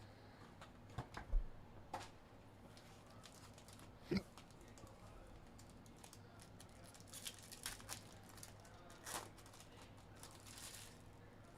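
Faint handling of a trading-card box and packs: plastic wrapper crinkling and tearing, with scattered small knocks and clicks of cardboard and packs being set down.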